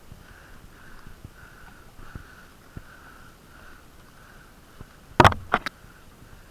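A person sniffing hard through a blocked, congested nose: one loud sniff about five seconds in, then two quicker, shorter sniffs. Faint steady breathing can be heard before them.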